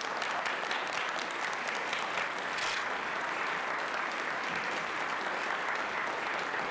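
A small group of people clapping steadily and continuously.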